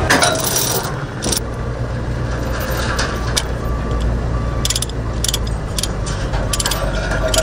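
A heavy vehicle engine running steadily, with several sharp metallic clinks of tie-down chains and a chain binder as equipment is chained down onto a trailer.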